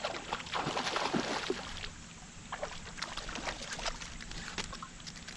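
A hooked trout splashing and thrashing at the surface of a pond as it is reeled in, loudest in the first second and a half, then scattered short splashes and flicks of water as the fish is lifted out.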